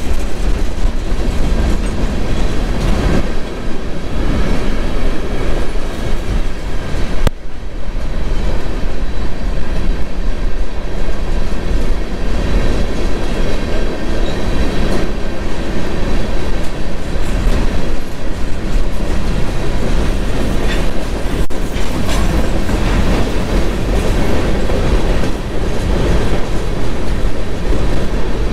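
Freight train of covered hopper cars rolling past, its wheels on the rails making a loud, steady rumble, with a brief dropout about seven seconds in.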